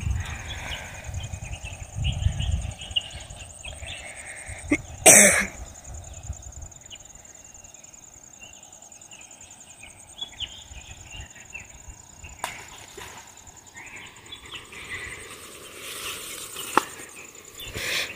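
Leaves and branches rustling as a man hauls a crab-bait string line up through dense riverbank bushes, with one loud, short noisy burst about five seconds in. A steady high insect trill runs underneath.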